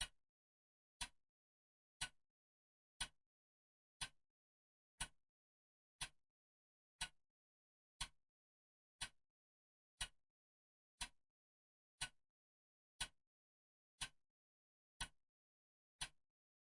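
Clock ticking steadily once a second, each tick a short sharp click with silence between.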